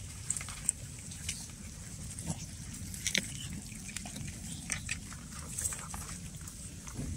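Cats chewing and crunching fish: irregular short clicks and crunches, a few of them sharper than the rest.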